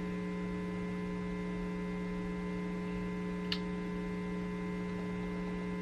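Steady electrical mains hum, with one short click about three and a half seconds in.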